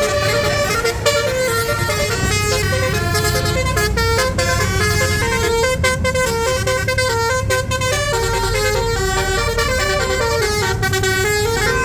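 Bus basuri (telolet) musical horn playing a melody in quick stepped notes, over a steady low rumble.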